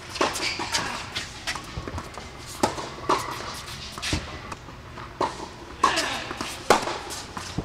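Tennis rally on an indoor hard court: sharp knocks of the ball off the rackets and the court surface every second or so, echoing in the large hall, with footsteps and shoe squeaks between the shots.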